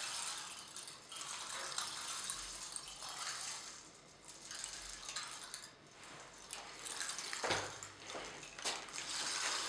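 A 'stream sound' drum (a frame drum filled with loose beads, like an ocean drum) being tilted so the contents roll across the head, a hissing rush in slow swells like a trickling brook. There is one louder rush about three-quarters through.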